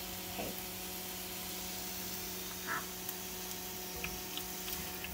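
JUST Egg plant-based scramble frying in a pan with a faint steady sizzle over a constant low hum. A few light clicks of the wooden spoon against the pan come near the end.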